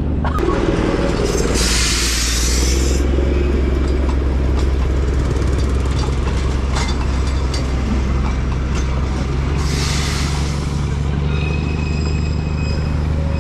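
Steady low drone of a motor scooter's engine and road noise while riding slowly, at about 20 km/h, with the Darjeeling Himalayan Railway toy train running alongside. A burst of hissing comes about two seconds in and another about ten seconds in, and a faint high tone starts near the end.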